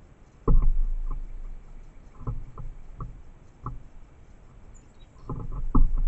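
Irregular knocks and thumps close to the microphone, each with a dull low thud. A cluster comes about half a second in, single knocks follow every half second or so, and another cluster comes near the end.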